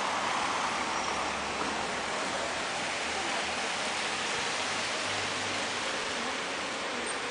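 Steady rain falling on a wet city street, with a car driving past on the wet road; its low engine hum fades out about five seconds in.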